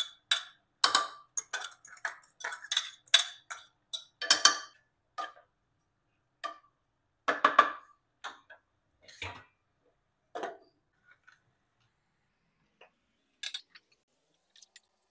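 Metal kitchenware clinking: a spoon scraping and tapping ground coconut out of a metal bowl into a cooking pot. There is a quick run of sharp taps for the first few seconds, then only a few scattered clinks.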